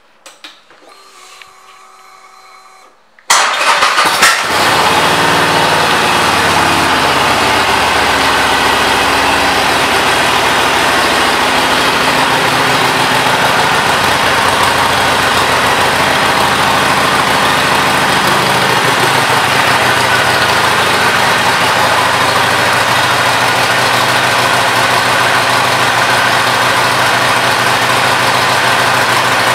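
Harley-Davidson SuperLow's air-cooled V-twin engine starting. After a few seconds of faint steady tones it fires with a sudden loud burst about three seconds in, its revs settle over the next few seconds, and it then idles steadily.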